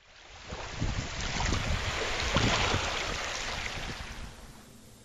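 Sound effect of an ocean wave: a rush of surf noise with a low rumble that swells for about two seconds and then fades away.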